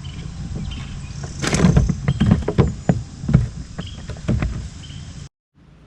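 A run of knocks and thumps on a kayak as a crappie is put into the fish box and the lid is handled, the loudest about one and a half seconds in; the sound then cuts off suddenly.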